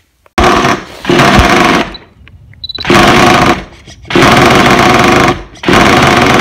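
Nitro RC truck engine revved in several bursts of about a second each, with short drops between them. The owner presents it as running with a fault for listeners to diagnose.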